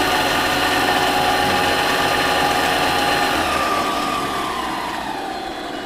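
Harbor Freight mini lathe running with a steady whine from its motor and gears, then slowing: about three seconds in the pitch falls and the sound drops in level.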